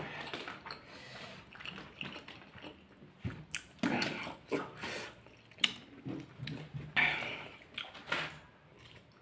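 Close-up eating sounds of spicy instant ramen noodles: wet slurps of noodles being sucked in, with chewing and lip smacks, in irregular bursts.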